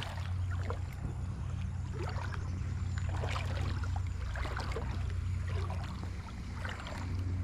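Creek water splashing and sloshing irregularly, over a steady low rumble.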